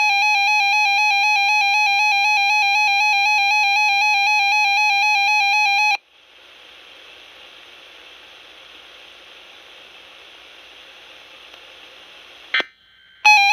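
Radioshack 12-521 weather radio sounding its alert alarm, a steady, fast-pulsing beep. The beep cuts off about six seconds in and leaves faint hiss from the radio's speaker. Near the end there is a click, and then the alarm beep starts again for the next alert.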